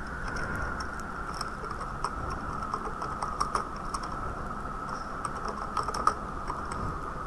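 Typing on a computer keyboard: quick, irregular key clicks over a steady faint background tone.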